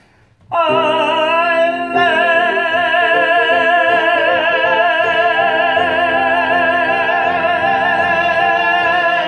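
A man singing one long held note in an operatic style, with a wide vibrato; it starts about half a second in.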